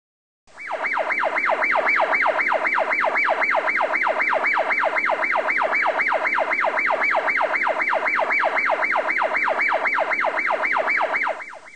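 Electronic yelp-style siren: a loud tone that sweeps rapidly downward over and over, about four sweeps a second. It starts about half a second in and fades out just before the end.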